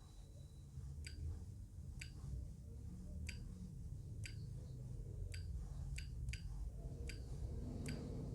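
A run of light, sharp clicks, about one a second but unevenly spaced, over a low steady rumble.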